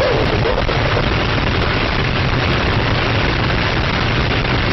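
Loud, steady rush of wind and road noise inside a car travelling at about 240 km/h on a motorway.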